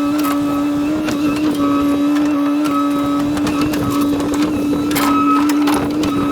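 Excavator running under load, its engine and hydraulics giving a loud, steady whine, with a few sharp cracks over it.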